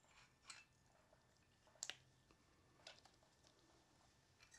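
Near silence with three faint, short clicks and knocks of metal parts being handled as a cast-iron cylinder barrel is lifted off its piston.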